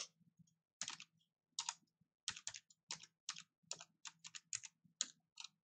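Computer keyboard typing: a string of uneven keystrokes, some in quick runs of two or three.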